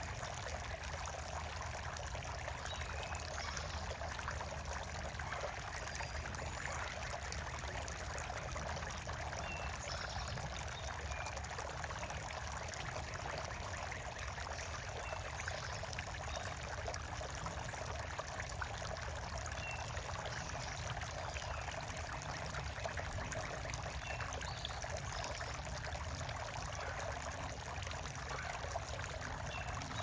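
Running water trickling steadily, with a few faint high bird chirps now and then.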